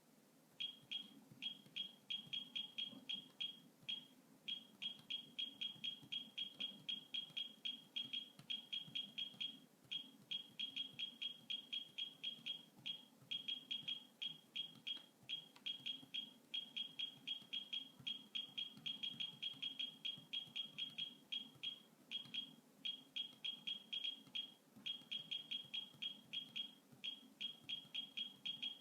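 Brookstone virtual laser projection keyboard beeping once per keystroke as someone types on it: short high beeps in quick runs, broken by brief pauses between words.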